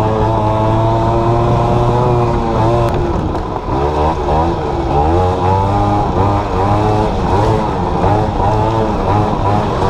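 Quad (ATV) engine running hard while riding a dirt trail, heard from the seat. Its pitch holds steady at first, then about three seconds in drops and climbs again and again as the throttle is eased off and opened through the trail.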